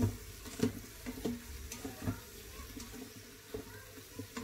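A plastic spatula stirring chicken pieces and corn in the stainless steel inner pot of an electric pressure cooker, with irregular knocks and scrapes against the pot over a faint sizzle as the chicken and vegetables fry.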